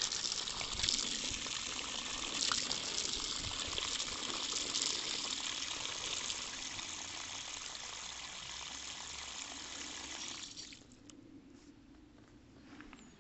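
Brass outdoor tap running at full flow, water splashing onto the ground, with spits of air in the first seconds as air is purged from the refilled water main. The flow is shut off about ten and a half seconds in.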